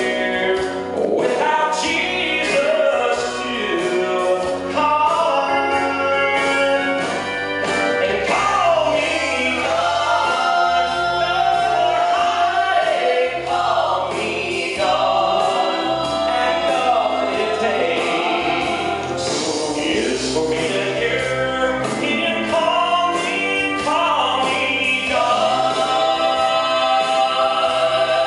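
Live gospel trio singing through handheld microphones over an instrumental accompaniment with a steady bass line. A man sings the lead, and two women join in harmony partway through.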